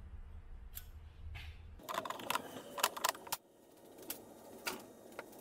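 Small metal hand tools and rivet hardware being handled, with clusters of sharp clicks and rattles starting about two seconds in, after a low steady rumble.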